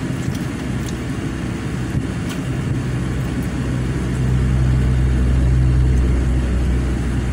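Low, steady hum of a motor vehicle's engine, heard from inside a car's cabin. It grows louder a couple of seconds in and eases off again near the end.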